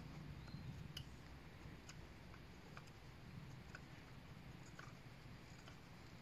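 Faint strokes of a bushcraft knife shaving a hazel stick, each giving a light click, about one a second.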